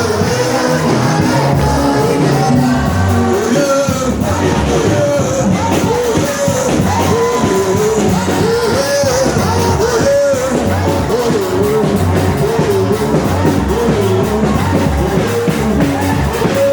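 Live church worship music: voices singing a melody over a band with a steady beat.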